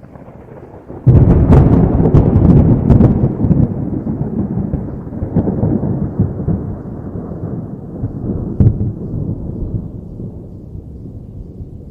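A thunderclap: a sudden sharp crack about a second in, with crackling strikes over the next two seconds, then a long low rumble rolling and slowly fading away.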